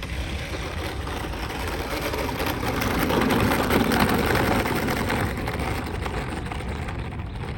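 Electric motors and propellers of a FlightLine B-24 Liberator RC model warbird running with a steady whine as it comes in to land, growing louder as it passes close about three to four seconds in, then fading.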